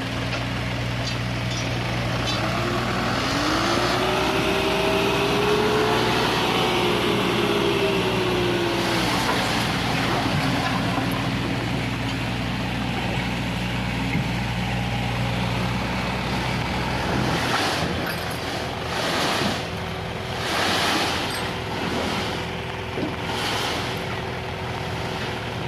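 Excavator diesel engine running steadily, its pitch rising under load for several seconds and then settling back. The low engine drone drops away late on, and uneven gusty noise surges follow.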